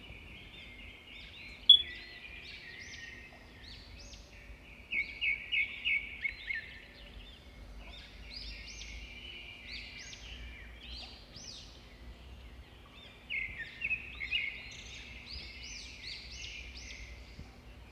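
Small birds chirping and twittering in the background in repeated short bursts, with one sharp click about two seconds in.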